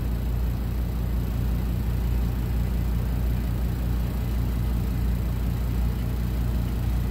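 Rotary evaporator running under vacuum while it strips diethyl ether from the flask: a steady low mechanical hum with a fast, even pulse, from the vacuum pump and the flask-rotation motor.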